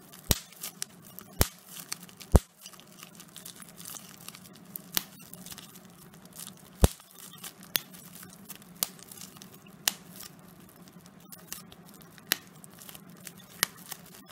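Plastic bubble wrap squeezed and twisted by hand, crinkling throughout, with about a dozen sharp pops of bursting bubbles at irregular intervals.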